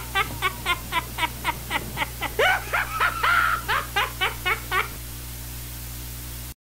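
High-pitched rhythmic laughter, about four "ha"s a second, breaking into a longer squeal about three seconds in and stopping about five seconds in. A steady low hum runs under it, then the sound cuts off near the end.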